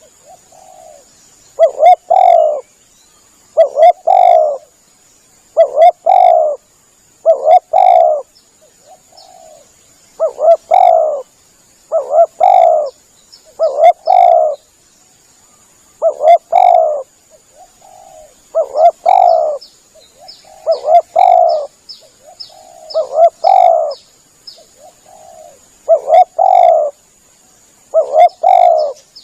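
Spotted dove (tekukur) cooing: the same short coo phrase repeated about every two seconds, used as a lure call to draw other doves in. Faint small-bird chirps come in around the middle, over a steady high whine.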